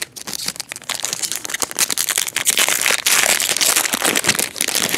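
Foil wrapper of a baseball card pack crinkling and crackling as it is handled and opened, a dense run of sharp crackles throughout.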